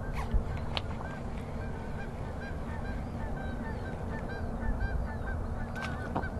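A steady series of short, repeated honk-like animal calls, over a low rumble, with a sharp knock about half a second in.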